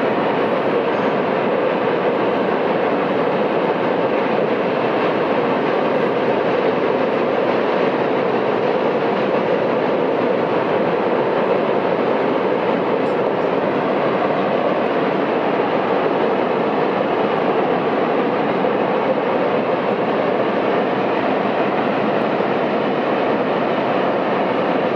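Norfolk Southern mixed freight train's cars rolling across a steel deck truss bridge: a steady, unbroken rumble of steel wheels on rail.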